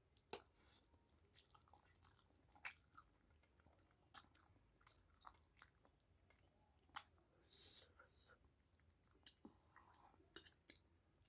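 A person chewing a mouthful of spicy instant ramen noodles: soft, scattered mouth clicks and smacks with a few short breathy sounds.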